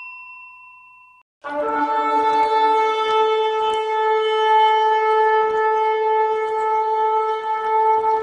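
A bell-like ding dies away in the first second. After a brief silence, a long shofar (ram's horn) blast sounds at a steady pitch.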